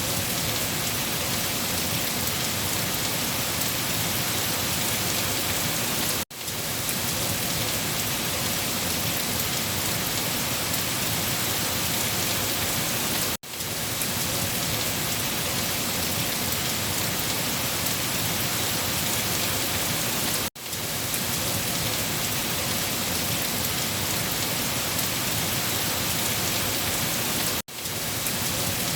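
Steady, heavy rainfall falling on a surface, an even hiss that cuts out for a split second about every seven seconds.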